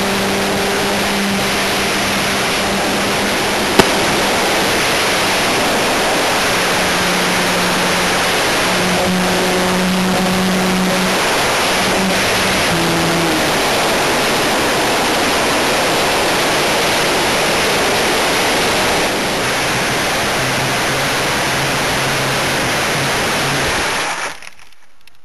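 Loud rushing airflow and motor noise from an RC aerobatic model airplane in flight, heard from a camera mounted on the model, with a faint motor hum that drops in pitch a few times. There is a single sharp click about four seconds in. The noise cuts off suddenly near the end, when the model has crashed.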